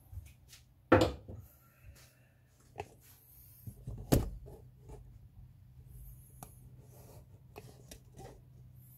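Objects being handled: scattered clicks and knocks, two sharp louder knocks about a second in and just after four seconds, over a low steady hum.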